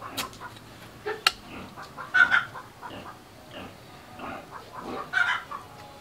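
Chickens clucking in short calls, with a small hand hoe striking the soil twice near the start.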